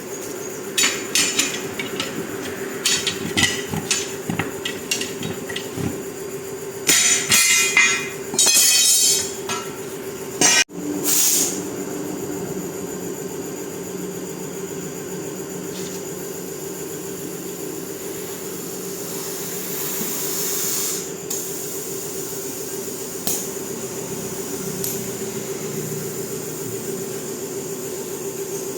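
Metal tools knocking and clinking in a series of sharp strikes, with several short bursts of hiss and a steady hum underneath, during work on a heavy truck tire.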